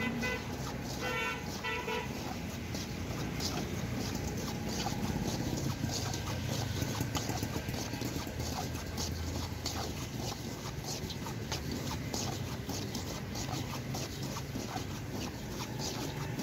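A metal scoop scraping and churning hot sand and roasting kernels in an iron wok: a continuous gritty rasp with many small rattling clicks, over a low street hum. A short horn-like toot sounds in the first two seconds.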